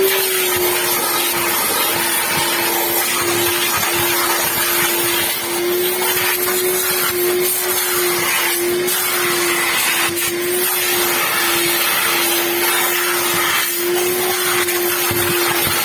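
A small electric motor running steadily, with a constant hum and a loud rush of air, like a vacuum cleaner.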